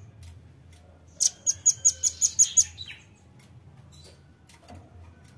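Velvet-fronted nuthatch (red-billed nuthatch) calling a quick run of about eight sharp, very high chips, some five a second, lasting about a second and a half.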